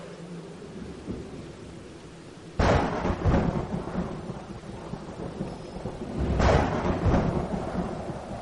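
Steady heavy rain with two loud thunderclaps, about two and a half and six and a half seconds in, each rumbling on for a second or two.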